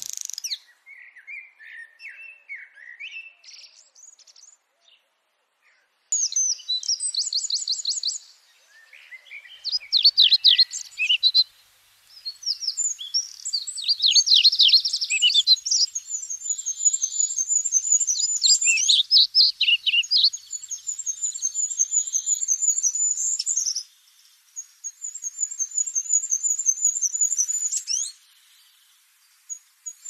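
Songbirds singing: faint scattered chirps at first, then fuller, louder song phrases, and from about halfway a rapid high trill repeated in long runs.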